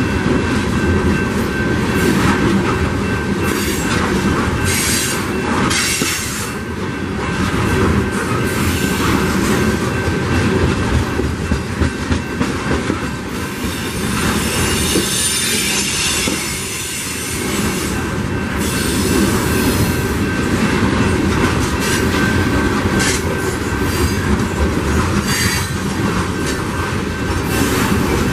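Coal train's open-top cars rolling by steadily: a continuous rumble and clatter of steel wheels on the rails. High-pitched wheel squeal rises several times over it.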